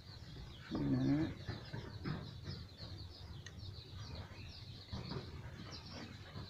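A brood of chicks peeping steadily, many short high cheeps overlapping.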